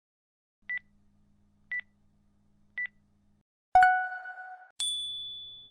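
Electronic timer signal: three short high beeps about a second apart, then a louder, lower tone lasting about a second, followed by a high chime that rings and fades. It is the countdown marking the end of a timed drawing pose.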